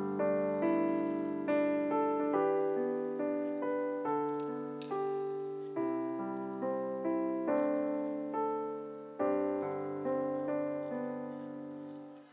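Piano introduction to a piece: chords and melody notes struck about once a second, each fading away, closing on a held chord that dies out near the end.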